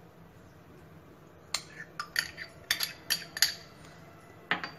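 A steel spoon clinking against a glass bowl, about six quick taps in a cluster and one more near the end, as thick hung curd is knocked off the spoon into the bowl.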